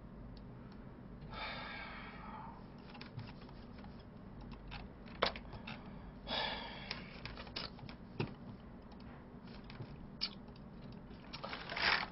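Scattered clicks of a computer keyboard and mouse being used at a desk, irregular and fairly quiet, with two brief soft rustling noises about a second and a half in and about six seconds in.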